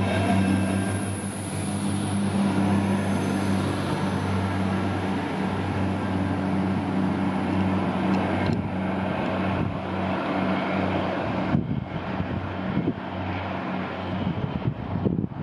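Iarnród Éireann 22000 Class diesel railcar pulling away, its engines droning steadily over wheel-on-rail running noise, with a high whine at first. The sound thins as the train draws off, and from about three-quarters through wind gusts buffet the microphone.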